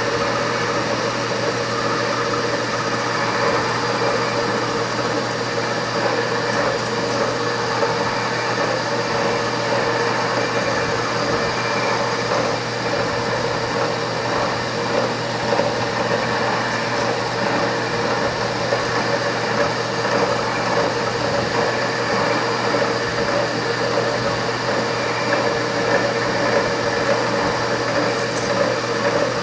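Milling machine spindle running steadily, turning an insert boring bar down through the cylinder bore on its final finishing plunge: an even machine hum with no change in pitch.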